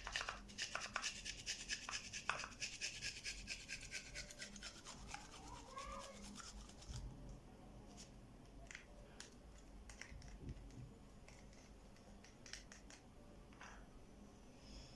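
A garlic clove rubbed quickly back and forth on a small kitchen grater: fast rasping scrapes for about seven seconds, then a few scattered light taps and clicks.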